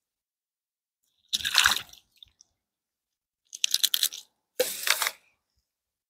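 Mussel and oyster shells crunching and clattering in three short bursts as they are gathered by hand, the last two close together.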